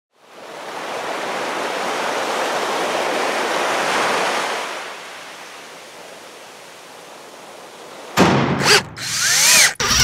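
Intro sound effect: a rushing noise like ocean surf swells up, holds loud for a few seconds, then sinks to a softer hiss. About eight seconds in it gives way to loud, abrupt effects broken by short gaps, with chirps that rise and fall in pitch.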